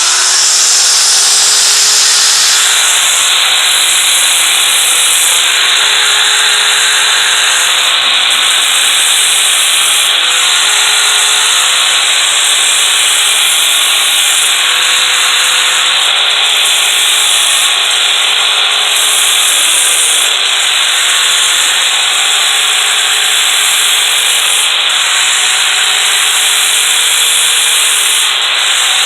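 Power tool spinning a sanding disc, grinding the burr off the steel rails of a Stihl chainsaw guide bar. It runs steadily throughout, with its motor tone rising just as it starts.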